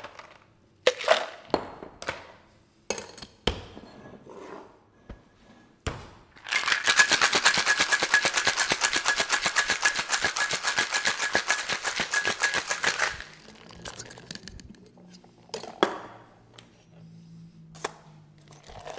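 Cocktail shaker with ice: scattered clinks and knocks, then about seven seconds of fast, rhythmic ice rattling as the shaker is shaken hard, followed by a few light knocks. This is the wet shake with ice of an egg-white sour.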